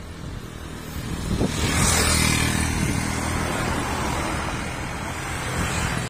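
A car passing along the road, its engine and tyre noise swelling about two seconds in and then slowly fading.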